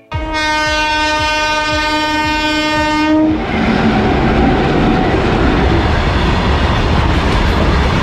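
Train horn blowing one steady note for about three seconds, then the steady rumble of the train running past.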